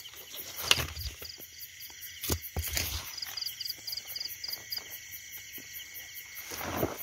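Night chorus of calling insects and frogs: a steady high trill with short chirps repeating about three times a second. Footsteps crunch and rustle through grass and brush, with a few louder knocks about a second in and between two and three seconds in.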